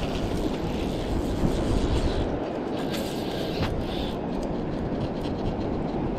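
Wind buffeting the camera microphone as a steady, dense rumble, with a few faint clicks over it.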